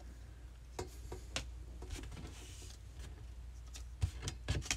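Baseball trading cards being handled: scattered light clicks and a brief rustle of card sliding against card, then a few louder taps near the end as cards are set down on the table.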